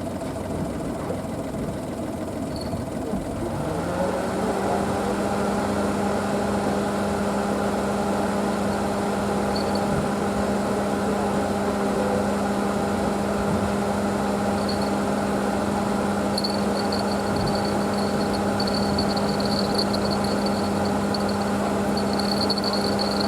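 A motor starts about four seconds in, rising quickly to a steady pitch, and runs evenly as a hum.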